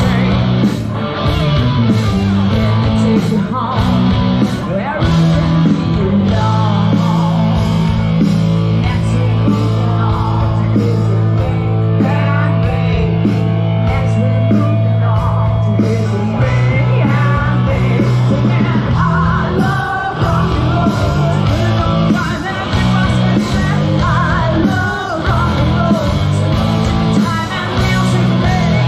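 Live rock band playing through a PA: drums, bass and electric guitar with a singer, the bass holding long low notes through the middle of the passage.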